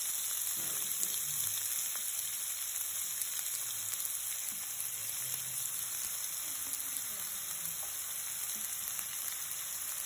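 Chopped onions and green chillies frying in hot ghee with cumin seeds in a non-stick pan: a steady sizzle.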